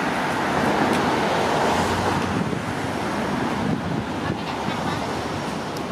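Steady hiss of road traffic from passing cars, with wind buffeting the microphone.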